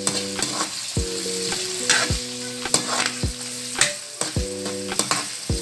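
A metal spatula scraping and knocking against a wok in repeated stir-fry strokes, over the steady sizzle of pork, garlic and onion frying in oil.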